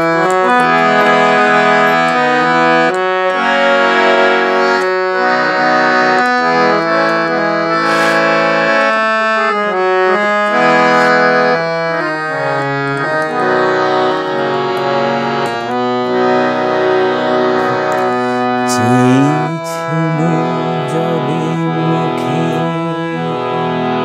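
Hand-pumped harmonium playing an instrumental interlude: a melody of held reedy notes over sustained chords, changing every fraction of a second. Near the end a man's voice slides in under the harmonium.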